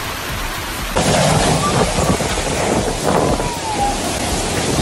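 Heavy rushing floodwater, a loud, steady noisy wash that jumps louder about a second in.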